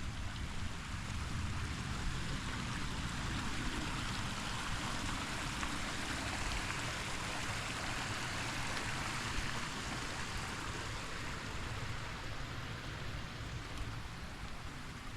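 Creek water flowing in a steady rushing hiss, swelling a little near the middle.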